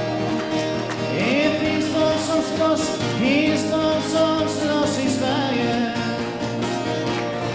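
Music with a singer holding long notes that slide up into pitch, over a steady backing and a regular beat, in a country or dance-band style.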